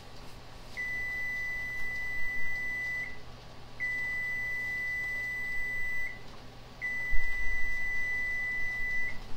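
Timer alarm beeping three times, each a long, steady, high beep of a bit over two seconds, signalling that the 75-minute pressure-canning time is up. A low knock comes just after the third beep starts.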